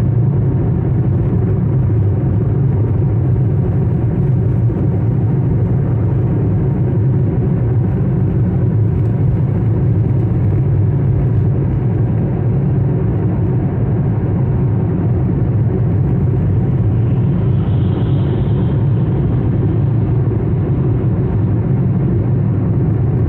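Steady road noise and engine rumble heard inside a car's cabin while driving at highway speed, a low, even drone that does not change.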